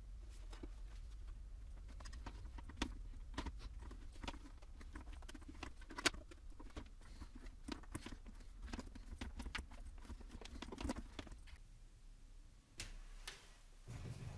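Irregular plastic clicks and knocks as a headlight's clear lens is handled and pressed down onto its housing, seating it on fresh butyl sealant before the headlight is baked, over a low steady hum.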